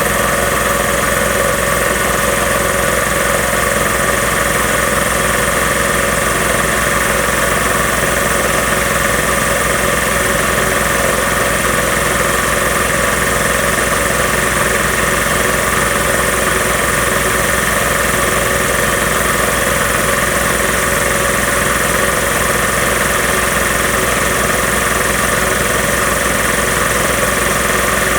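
Magna Force two-stage air compressor running steadily, its electric motor driving the pump as it builds pressure in the tank.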